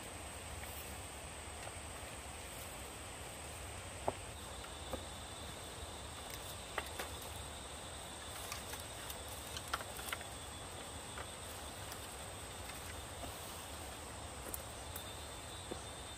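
Steady high insect drone, with a second high tone joining about four seconds in, over a soft outdoor hiss. Scattered light clicks and knocks, the sharpest about four seconds in, from bamboo poles being carried and handled and footsteps on a grassy path.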